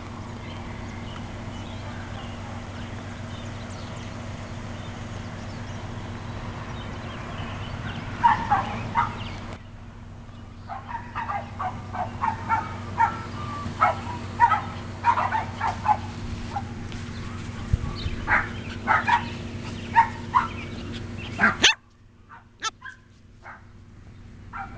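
Young Sheltie puppies yipping and barking, many short high calls in quick irregular runs beginning about a third of the way in. A steady low hum lies underneath and cuts off suddenly near the end.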